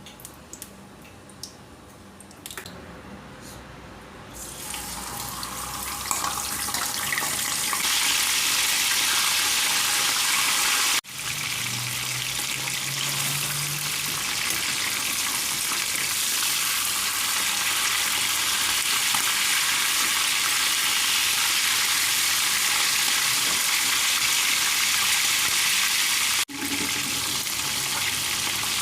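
Fish frying in hot oil, sizzling. A few faint clicks come first, then the sizzle builds over a few seconds into a loud, steady hiss.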